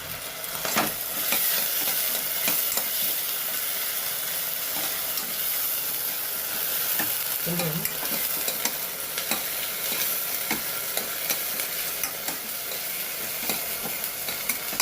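Onion and ginger-garlic paste masala sizzling in hot oil in a pan while being stirred, the spoon scraping and clicking against the pan. A little water has been added to keep the masala from burning.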